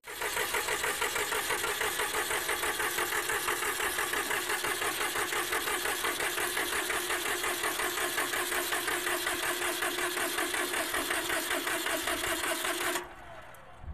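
Massey Ferguson 1010 tractor's diesel engine being cranked by its starter motor, a steady, even chugging for about thirteen seconds that never catches, then cuts off suddenly. The engine is not firing, and the battery is running down.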